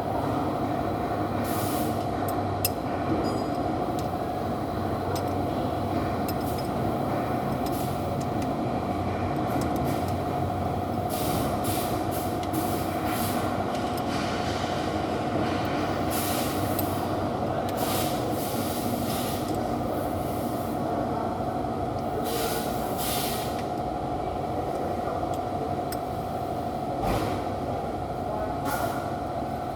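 Steady mechanical running noise with a constant whine, broken every few seconds by short hissing or clattering bursts.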